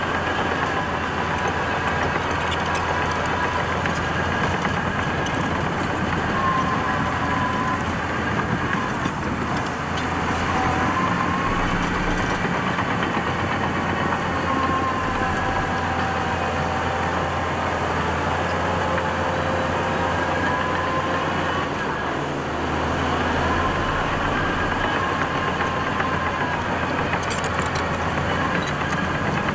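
Heavy diesel engine of earthmoving machinery running steadily, its pitch rising and falling slowly as the revs change.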